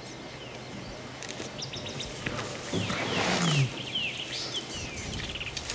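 A lion gives one low growl that falls in pitch, about three seconds in, while small birds chirp high and briefly around it.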